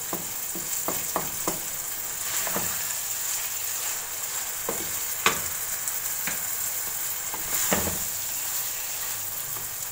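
Minced meat frying in oil in a nonstick wok, a steady sizzle, with a wooden spatula stirring it and knocking and scraping against the pan about ten times. The mince is at the early stage of frying, still wet and pink, before it turns white.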